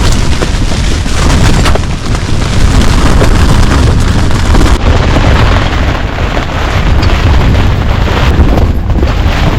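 Storm-force wind buffeting a rooftop tent: a loud, continuous deep rumble of wind gusts with frequent sharp snaps of the flapping tent fabric.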